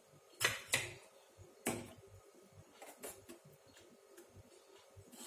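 Steel kitchen utensils clinking. There are three sharp clinks in the first two seconds as a steel ladle is handled. A few softer taps follow as the ladle stirs the kheer in a steel pan.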